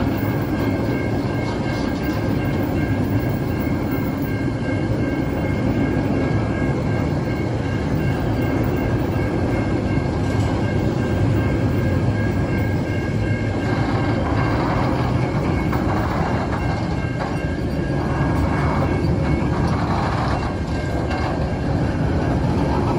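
Freight train wagons, empty log wagons and then container wagons, rolling past at a level crossing: a steady rumble of steel wheels on rail. The rattle and clatter grow busier about halfway through as the container wagons pass.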